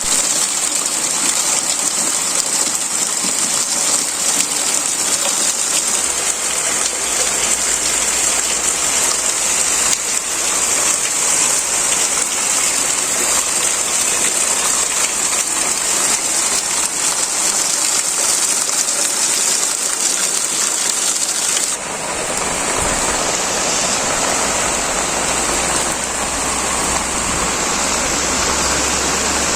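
Heavy rain falling steadily, a dense continuous hiss. About three-quarters of the way through the sound changes abruptly to a fuller, lower rush of pouring rain.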